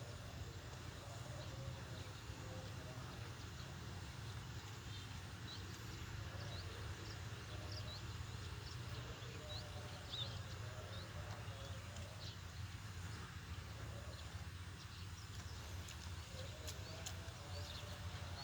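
Faint outdoor background: a steady low hum with scattered short, high chirps throughout.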